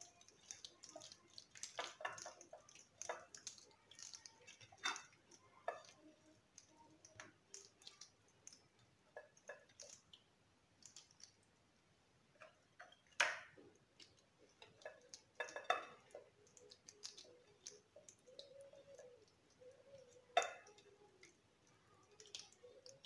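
Hands rubbing chermoula marinade into a whole raw fish on a ceramic plate: faint, scattered small clicks and handling sounds, with a few sharper clinks against the dishes, the loudest about 13 and 20 seconds in.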